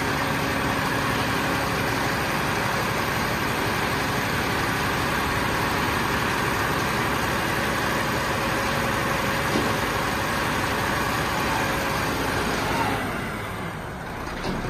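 Diesel engine of a HOWO 12-wheel dump truck running steadily, its tipper body raised; the sound gets quieter about thirteen seconds in.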